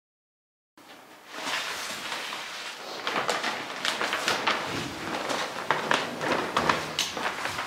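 Plastic sheeting crinkling and rustling as it is handled, with many scattered sharp clicks and small knocks. It starts abruptly just under a second in, after dead silence.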